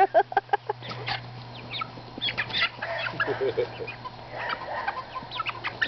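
Young chickens clucking and squawking in quick, short, repeated calls while a corgi puppy chases and herds them.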